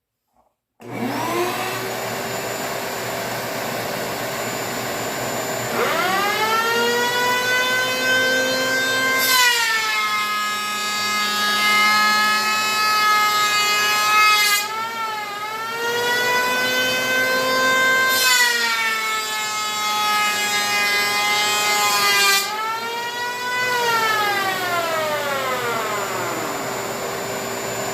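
Electric hand planer planing poplar boards: it spins up about six seconds in, runs through several passes with its pitch shifting as the cut loads it, and winds down with a falling whine near the end. A steady motor hum runs underneath it.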